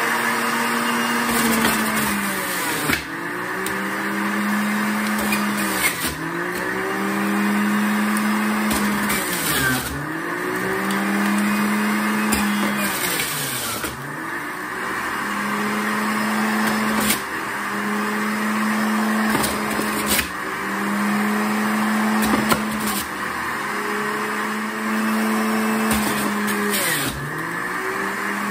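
Centrifugal juicer running and shredding cucumber and apple. Its motor hum sags in pitch every few seconds as produce is pushed down the feed chute under load, then recovers, over a steady grinding whir.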